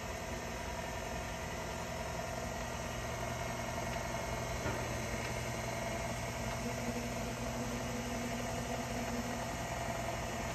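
KitchenAid stand mixer motor running with a steady hum, driving a pasta roller attachment as a sheet of dough is fed through the rollers.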